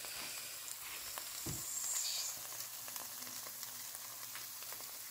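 Sauce-glazed chicken wings sizzling with faint crackles in a hot air fryer basket fresh out of the fryer, with a soft low thump about one and a half seconds in.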